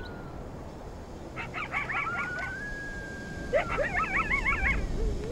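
Animal calls: two bursts of wavering, high yelps with one long held call between them that rises slightly and then holds.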